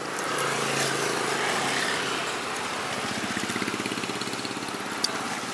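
A motor vehicle's engine running on the street, a steady hum at first, then a rapid, even pulsing from about two seconds in.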